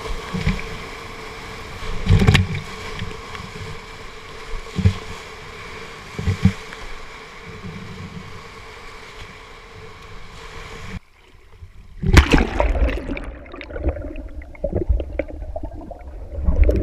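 Whitewater rapid rushing around a kayak, heard through a waterproof action-camera housing, with several heavy thuds as waves hit the boat and paddle. About 11 seconds in the sound cuts off suddenly as the kayak goes under, followed by loud muffled churning and splashing.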